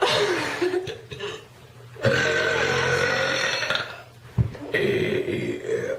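Young women burping three times in a row: a short burp at the start, a long drawn-out one of nearly two seconds in the middle, and another near the end.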